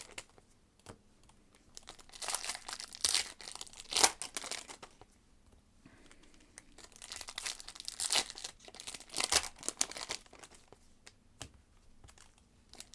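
Trading card pack wrappers being torn open and cards handled: crinkling and tearing in short, irregular bursts with quieter pauses between.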